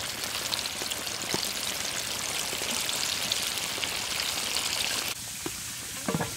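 Batter-coated chicken deep-frying in hot oil in a wok: a dense, crackling sizzle that cuts off suddenly about five seconds in.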